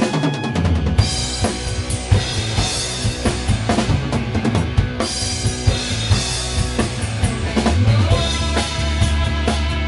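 Rock band playing live, with a full drum kit prominent (bass drum and snare hits) over electric guitars.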